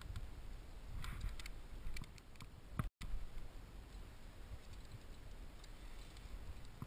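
A climber moving on rock: scattered light clicks and scrapes of hands, climbing shoes and gear against the rock, over a low wind rumble on the microphone. The sound cuts out for a split second about three seconds in.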